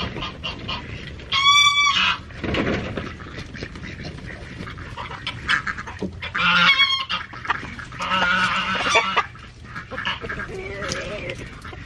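A flock of chickens calling. There are loud, high, honk-like calls about a second and a half in and again around six and a half seconds, and a noisier squawk around eight seconds.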